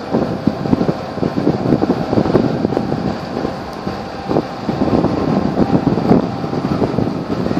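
Strong wind buffeting the microphone over open water: a loud, uneven gusting noise with no steady pitch.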